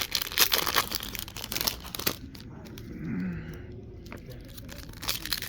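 Trading-card pack wrappers crinkling and tearing as packs are opened and the cards handled. The crackling is dense for about two seconds, goes quieter, and picks up again near the end.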